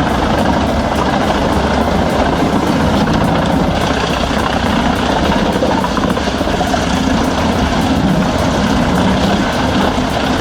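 Large tree chipper running under load while chipping trunks, a loud, steady engine drone mixed with the noise of wood being shredded.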